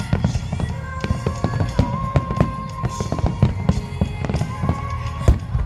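A barrage of aerial firework shells bursting in quick succession, with sharp bangs and crackles overlapping over a continuous low rumble and a heavier bang near the end. Music with a held melody line plays underneath.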